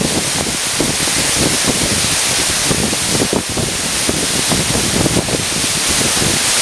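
Waterfall pouring into its plunge pool: a loud, steady rush of falling water with constant splashing.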